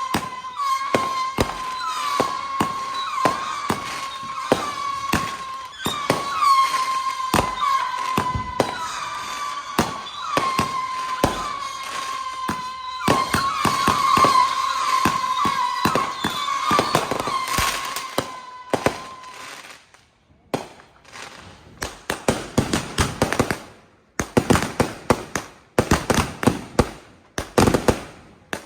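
Consumer fireworks going off: rapid pops and cracks over a steady high whistle for the first two-thirds. After a brief lull, a dense run of sharp crackles follows.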